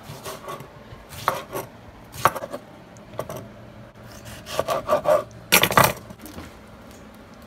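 Serrated kitchen knife slicing a tomato on a wooden cutting board: a few separate knocks of the blade meeting the board, then a quicker, louder run of cuts about four and a half to six seconds in.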